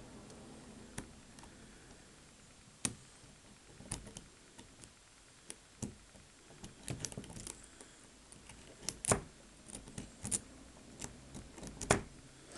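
Offset diamond lock pick raking the pins of a Kasp 180 series padlock under tension: irregular small metallic clicks and light scrapes from inside the lock, the sharpest clicks about nine and twelve seconds in.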